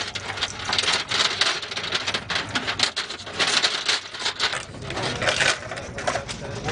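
Belt of linked machine-gun cartridges rattling and clinking as it is handled and fed in: a dense, irregular run of metallic clicks.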